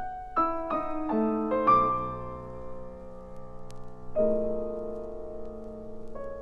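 Solo piano playing contemporary classical music: a quick rising run of single notes in the first two seconds gathers into a sustained, ringing chord, then a new loud chord is struck about four seconds in and left to ring, with fresh notes entering near the end.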